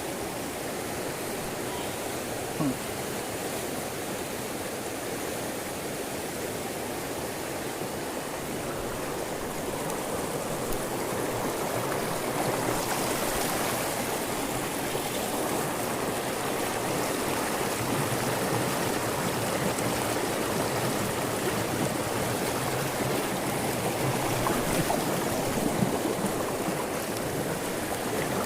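Steady rush of a fast-flowing river, its current running over rocks, growing a little louder about a third of the way in. A single short tick is heard early on.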